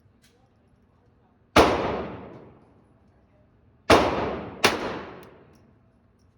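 Three gunshots at a shooting range: one about a second and a half in, then two close together near four and five seconds, each dying away over about a second.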